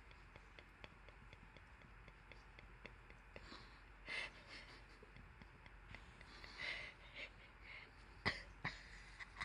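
Faint scuffling and light ticks of a hand wrestling with a cat on a fabric sofa, with a few short breathy bursts and a sharper click about eight seconds in.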